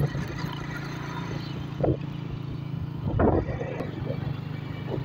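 Motorcycle engine running at a steady cruising speed while riding, with road and wind noise. Two short louder bumps come about two and three seconds in.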